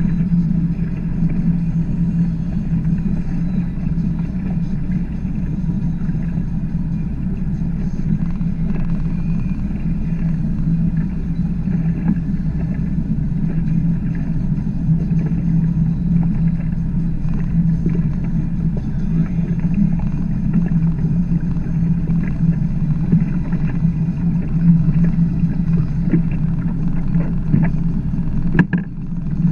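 A 21-foot Chaparral H2O bowrider under way at steady cruising speed: its engine drones evenly with the hiss of the hull moving through the water. The sound dips briefly with a click near the end.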